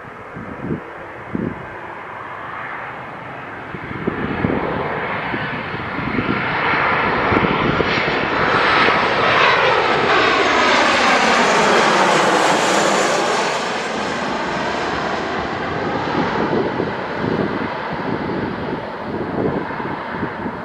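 Jet2 Boeing 737 airliner on final approach, passing low overhead with its landing gear down. The jet noise builds to its loudest about halfway through, with whining tones that bend in pitch as it passes, then fades as it heads away. Wind buffets the microphone near the start and end.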